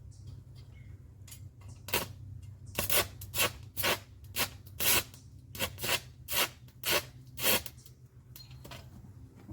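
Stick welder striking an arc with a 3/32 aluminum electrode at 65 amps: about a dozen short crackling bursts over some six seconds as the arc catches and dies again, the rod failing to hold a steady arc. A steady low hum sits underneath.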